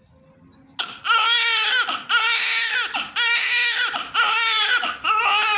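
Newborn baby crying: after a quiet breath of about a second, a run of about six loud, high-pitched wails in quick succession, each breaking off briefly before the next.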